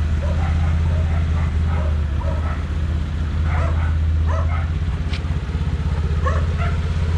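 An engine running steadily at a constant speed, with a dog barking repeatedly over it in short, irregular barks.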